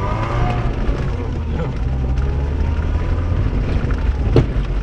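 Mercedes rally car's engine running steadily as the car drives down a dirt road, with small rattles and one sharp knock near the end.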